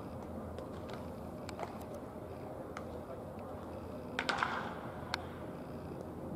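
A baseball bat meeting a batting-practice pitch: a short cluster of sharp cracks about four seconds in, with a single click about a second later, over a steady murmur of distant voices.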